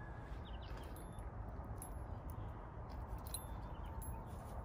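A Doberman chewing a raw squirrel in a steel bowl, making scattered sharp clicks over a steady low background rumble.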